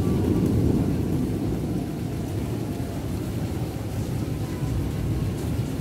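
Thunderstorm: a steady low rumble that swells slightly in the first second.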